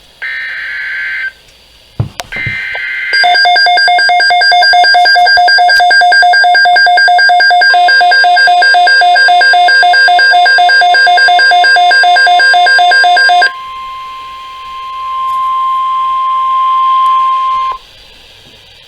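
Emergency Alert System signal over NOAA Weather Radio. It opens with short screechy digital header bursts and a click, then loud rapid electronic alert beeping for about ten seconds. The steady 1050 Hz warning alarm tone joins about eight seconds in and cuts off about a second before the end.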